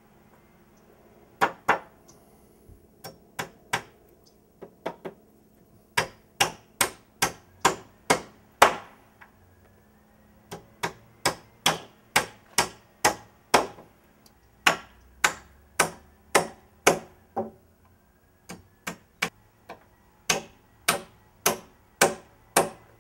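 Hammer driving nails through a wooden 2x4 sill plate into the studs of a wall frame. Sharp strikes come about two a second, in several runs of a few blows each with short pauses between runs.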